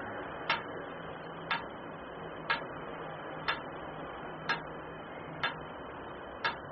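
Metronome ticking steadily about once a second, set to model a heartbeat so that the breaths can be counted.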